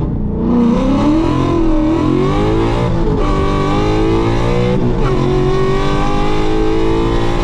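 Ford Boss 302 Mustang's 5.0-litre V8, heard through aluminized-steel side pipes, accelerating hard. The pitch rises, then drops at gear shifts about three and five seconds in, and climbs again after each.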